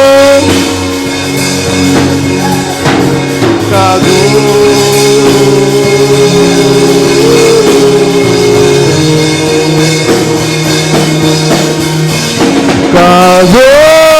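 Worship music: long held sung notes that slide between pitches, over instrumental backing with a light drum beat.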